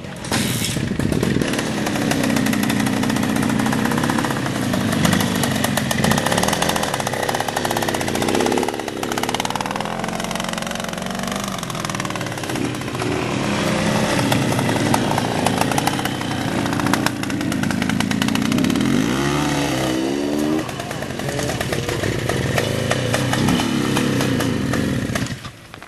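Vintage trials motorcycle engine revving up and down over and over, close by, as the bike is ridden over rough, steep ground. It drops away sharply near the end.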